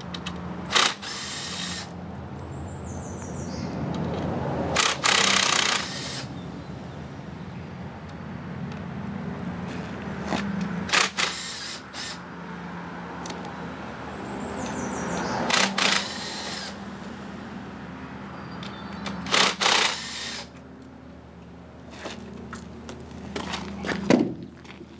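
Handheld power tool run in short loud bursts, about six times, while an outboard motor's powerhead is being stripped, over a steady low hum.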